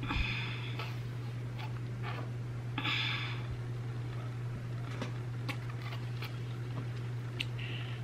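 A person breathing sharply through the nose while gulping soda from a bottle: one breath right at the start and another about three seconds in, with faint small clicks between. A steady low hum runs underneath.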